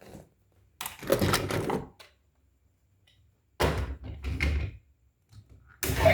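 Handling noise from unboxing a toy vehicle: two bursts of knocking and rustling, each about a second long, with quiet between. Music starts just before the end.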